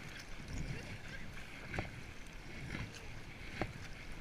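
Double-bladed kayak paddle strokes splashing into choppy sea water, about one a second, with water sloshing around an inflatable kayak.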